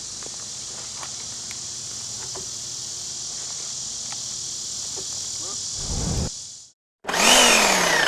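Insects droning steadily at a high pitch, with a few faint knocks. About six seconds in a low rumble swells and cuts to a moment of silence, then a loud intro sound effect begins, with several tones sliding downward.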